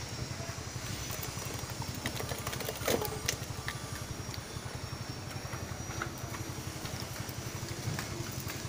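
An engine idling with a steady low throb, with a faint high whine above it. A few sharp knocks and clatters of workshop work cut through, the loudest about three seconds in.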